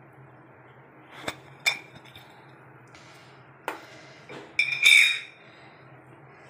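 Kitchen utensils clinking: two sharp clinks about a second in, another just before the middle, then a louder ringing clatter around five seconds in.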